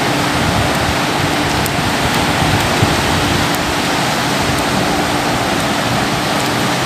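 Steady, loud rushing noise of ocean surf and wind, with a faint steady hum underneath.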